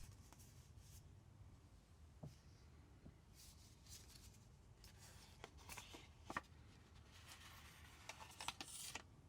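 Faint, scattered rustles and light clicks of paper and card being handled, with a few slightly louder brushes about midway and near the end.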